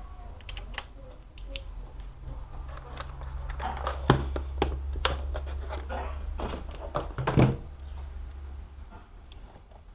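Plastic laptop being handled on a work surface: a run of light clicks and taps, with two louder knocks about four and seven and a half seconds in, over a low hum.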